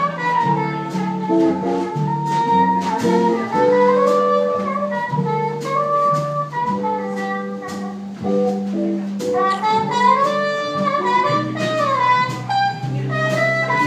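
Small trad jazz band playing an instrumental passage: a trumpet plays melodic lines over strummed acoustic guitar and upright bass, with no singing.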